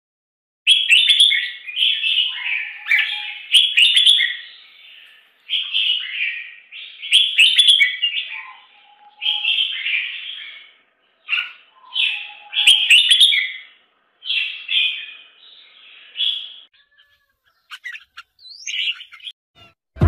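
Bulbul nestlings begging with shrill chirps while being fed at the nest, in repeated bouts with short pauses, thinning out near the end.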